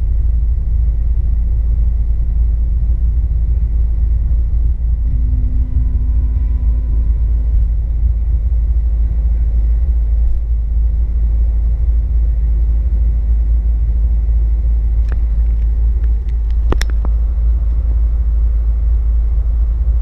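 Street ambience: a steady, loud low rumble of traffic. A few sharp clicks come about 15 and 17 seconds in.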